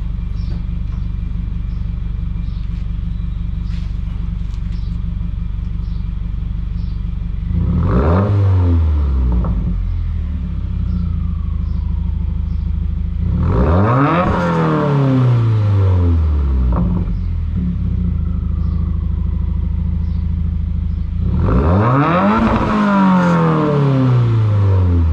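Subaru WRX turbocharged boxer-four breathing through an ETS cat-back exhaust, idling warm with a deep note, then blipped three times, each rev climbing higher before dropping back to idle: to about 3,000, 5,000 and 7,000 rpm at the redline.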